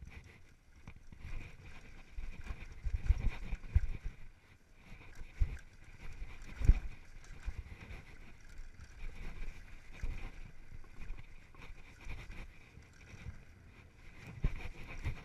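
Downhill mountain bike riding over a rough dirt trail: irregular low knocks and rattles as the wheels and suspension hit bumps, with a run of heavier thuds about three seconds in and one hard thump near seven seconds, over a steady rush of riding noise.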